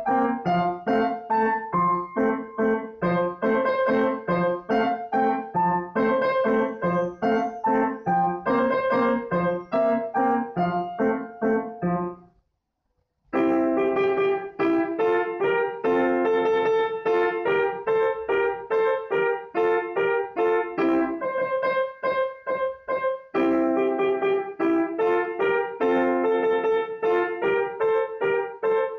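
Solo grand piano played in a quick run of many notes. The playing breaks off for about a second near the middle, then resumes.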